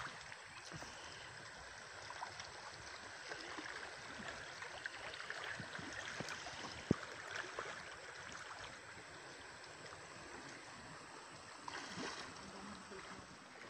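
River water swishing and lapping around people wading through it, with scattered small splashes and one sharp click about seven seconds in.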